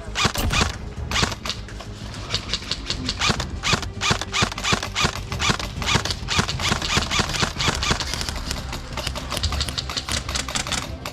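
Airsoft guns firing on the field: a dense, irregular string of sharp cracks, several a second.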